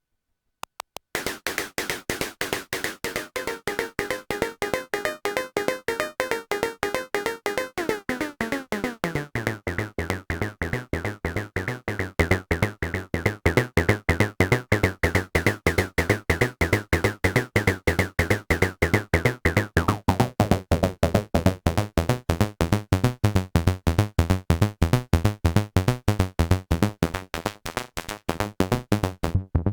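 Behringer Crave analog synthesizer playing a fast, repeating sequencer pattern of short notes, starting after about a second of silence. About nine seconds in the pattern turns deep and bassy, and about two-thirds of the way through the bright top of the sound is cut and it turns duller.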